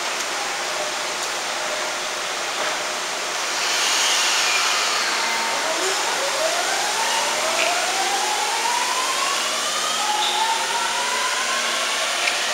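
Sobu Line local electric train pulling away from the platform. Its traction inverter whine climbs in pitch in several rising steps as it accelerates, over a steady hiss.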